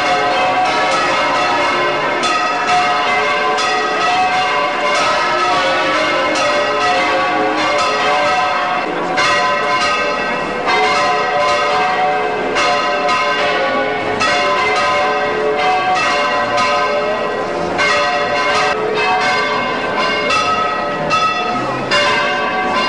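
Church bells pealing, several bells at different pitches struck one after another in a rapid, unbroken ringing.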